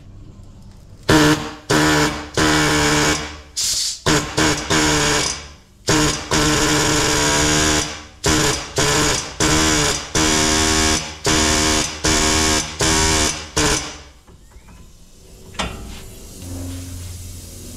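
Pneumatic impact wrench on an air hose, run in a long series of short trigger bursts with a steady buzzing pitch. It is driving a ball joint press to push the worn upper and lower ball joints out of the steering knuckle. The bursts stop about 14 seconds in, and a single knock follows.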